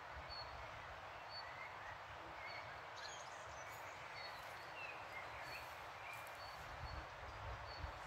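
Steady rush of a river under the songs of small forest birds: short high chirps repeating every second or so, with a few brief whistled notes. A few low rumbles come in near the end.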